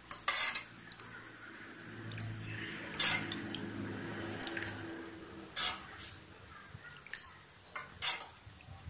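Steel ladle scooping thin rasam out of a pot and pouring it into a glass bowl: liquid dripping and splashing, with several sharp clinks of the ladle against the pot and bowl.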